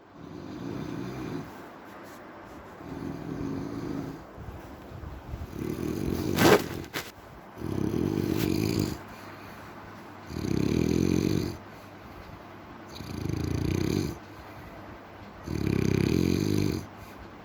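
Slow, regular snoring: seven long, low snores about every two and a half seconds, with quieter breathing in between. A single sharp click about six and a half seconds in is the loudest sound.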